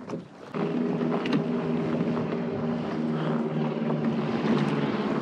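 A boat motor running at a steady pitch, starting abruptly about half a second in and holding constant.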